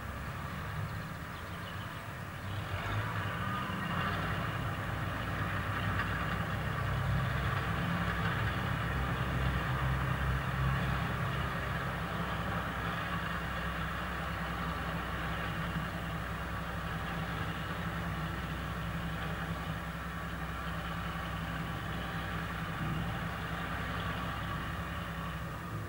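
Diesel engine of a wheeled front-loader tractor running steadily, growing louder about two and a half seconds in as it works.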